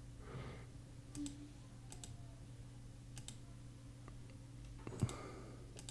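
Faint, irregular clicks from a computer mouse and keyboard used to edit a document, about half a dozen spread over a few seconds.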